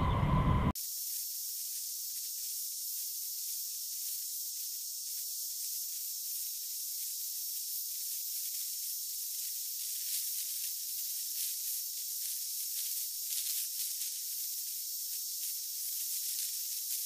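Aircraft engine noise with a steady whine cuts off abruptly under a second in. A steady high-pitched hiss with no low rumble follows.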